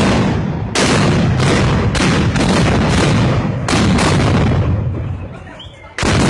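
A running volley of gunpowder blank shots from festival arcabuces (blunderbusses), about two a second, each loud crack echoing. The firing dies away a little past halfway, and the shots start again with a sharp report near the end.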